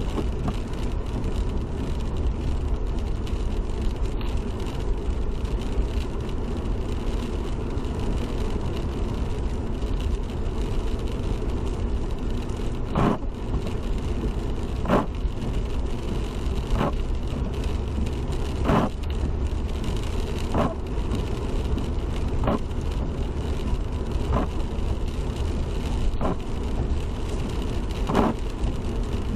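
Car driving on a wet road in the rain: steady low tyre and road noise. From about halfway through, a short sweep-and-thump comes about every two seconds, the rhythm of windshield wipers on a slow setting.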